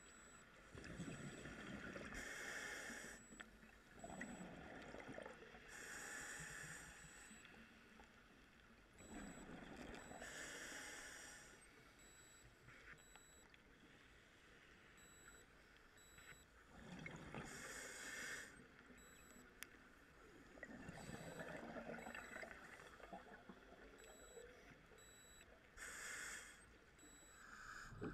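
Scuba diver's own breathing through a regulator underwater: slow, repeated cycles of a hissing inhale and a rumbling burst of exhaled bubbles, about five breaths with quieter pauses between.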